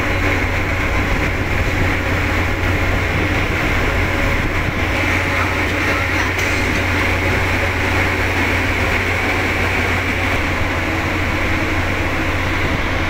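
River ferry's engine running with a steady low drone and a constant rushing noise over it, unchanged throughout.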